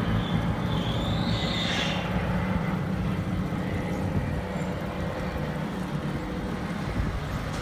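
Steady low engine rumble of a crane barge's heavy machinery as it slowly swings its loaded clamshell bucket around.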